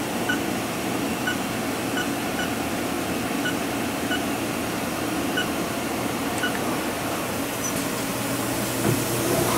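Haas VF3 vertical machining center spindle running steadily at about 2000 RPM: an even mechanical whir and hum that holds the same level throughout.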